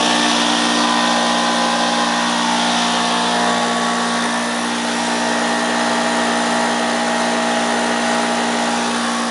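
Oilless 240-volt electric air compressor running, a loud, steady motor-and-pump drone with an even hum and hiss, just after switching on.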